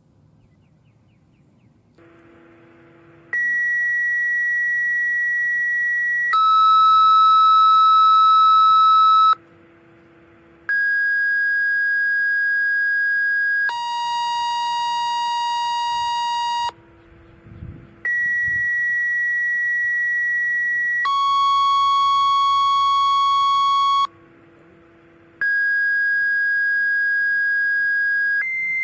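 Siren activation tones over a radio tuned to the dispatch frequency: pairs of steady beeping tones, each about three seconds long, the second of each pair lower in pitch than the first. A short low buzzy tone comes between the pairs. Four pairs, starting about two seconds in.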